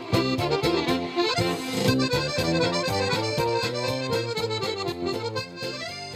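Accordion-led music with a steady, regular bass beat, growing gradually quieter through the second half.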